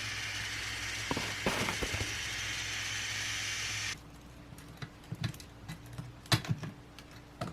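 A steady hiss that cuts off suddenly about four seconds in, followed by scattered light clicks and taps of small parts and tools being handled on a repair bench.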